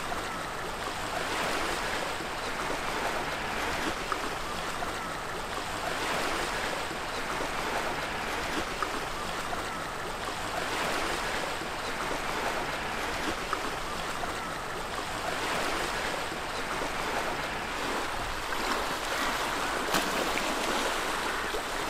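Small waves washing onto a shingle beach: a steady hiss of surf that swells gently every few seconds.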